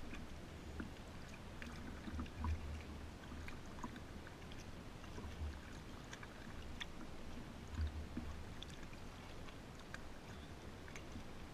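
Kayak moving on a calm river: soft paddle and water sounds with scattered small clicks and drips, and a few low thumps, the strongest about two and a half seconds in and again near eight seconds.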